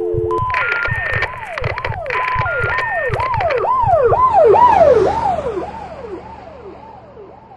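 Emergency-vehicle siren in a fast up-and-down wail, about two sweeps a second, growing louder to a peak about five seconds in and then fading away.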